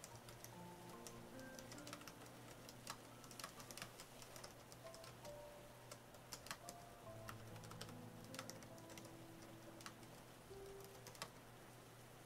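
Faint, irregular key clicks from typing on an AlphaSmart portable word processor, with soft piano music underneath.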